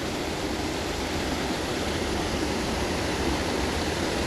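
Steady rush of creek water pouring over a small waterfall.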